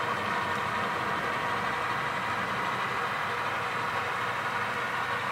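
Steady diesel engine sound from a sound-equipped HO scale model locomotive, played through its small onboard speaker as it pulls a cut of cars.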